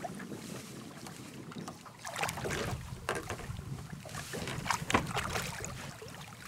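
Water splashing and sloshing against the side of a small boat, with scattered short knocks and splashes.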